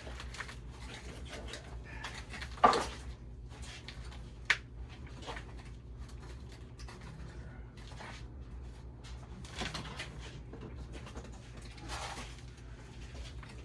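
Scattered knocks and handling noises, the sharpest one about two and a half seconds in and another about four and a half seconds in, over a steady low hum.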